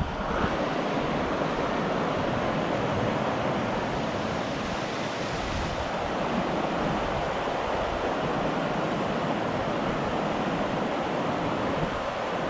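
Fast mountain river rushing over rocks through a canyon: a steady, even rush of whitewater.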